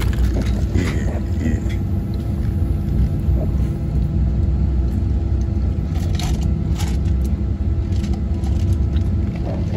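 Steady low engine drone heard inside an airliner cabin in flight, with a few constant hum tones underneath.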